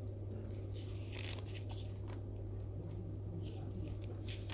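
Brief scratchy, crackling noises of multimeter probes being moved over the pins of an HDMI port, about a second in and again near the end, over a steady low electrical hum.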